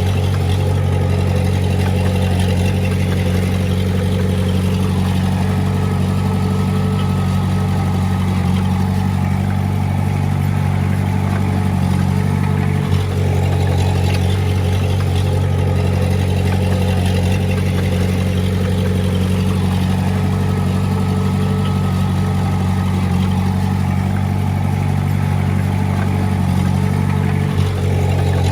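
Heavy-equipment diesel engine running steadily under load, with a deep, even hum, dipping very briefly twice.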